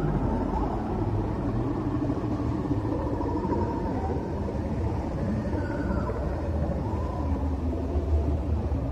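Low, steady rumbling drone with faint wavering tones drifting above it: an ambient 'sound of space' soundtrack made from electromagnetic signals turned into audible sound.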